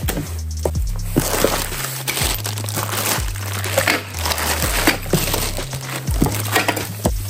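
Background music with a beat and a bass line, over the crinkling of bubble-wrap plastic and cardboard as a box is opened and bubble-wrapped caster wheels are unpacked.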